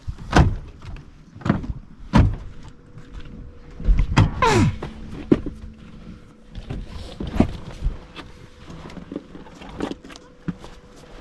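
Scattered knocks and thumps against a boat, as gear is handled on board, with a squeak that falls in pitch about four and a half seconds in and a faint steady hum underneath.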